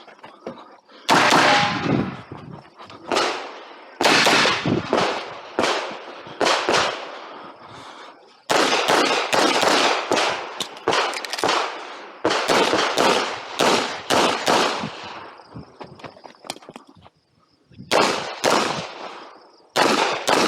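Handgun shots fired in quick strings of rapid shots, each with a trailing echo. There is a short break around 8 seconds in and a longer one near 16 seconds before the last few shots.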